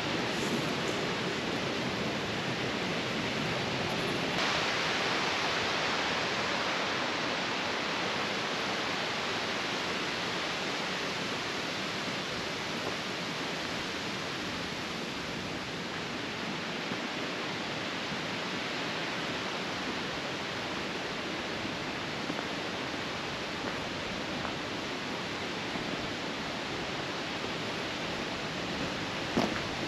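Steady rush of a mountain stream, a little brighter from about four seconds in, with a brief knock near the end.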